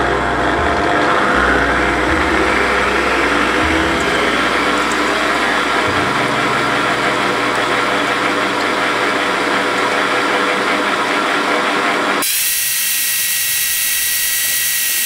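Electric stand mixer running at high speed, its wire whisk beating eggs and sugar in a steel bowl: a steady, dense motor whir. About twelve seconds in, the sound changes abruptly to a thinner, higher whine.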